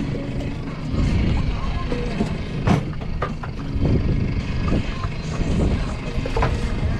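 Steady low rumble of a small fishing boat at sea, with wind on the microphone and a few sharp knocks, the loudest about three seconds in.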